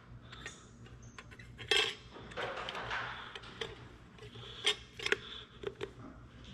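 Steel brake plates and friction discs of an excavator final drive's parking brake clinking as they are set onto their splines in the housing: a few sharp metal clicks, the loudest about two seconds in, with a short scraping rub.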